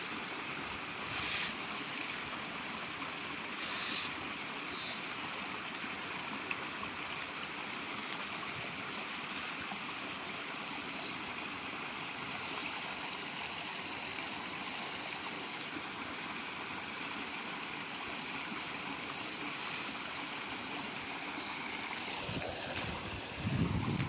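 Small rocky mountain stream rushing and splashing over stones in a little cascade: a steady, even rush of water. Two brief louder hisses come about one and four seconds in, and a short low rumble near the end.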